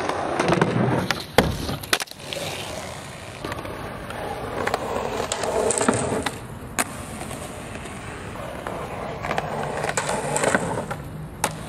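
Skateboard wheels rolling over rough asphalt in several passes that swell and fade, with a few sharp clacks of the board popping and landing.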